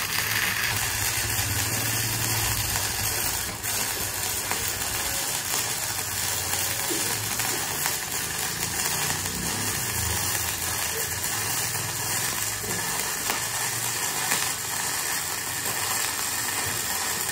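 MIG welding arc running steadily along thin steel box section at low current, with a brief break about three and a half seconds in.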